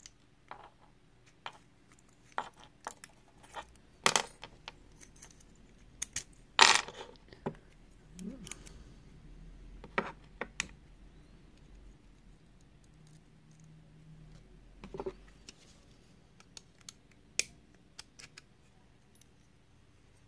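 Small metallic clicks and taps at irregular intervals as a re-pinned pin-tumbler lock cylinder is handled and its plug put back into the housing, with a few louder knocks among the lighter ticks.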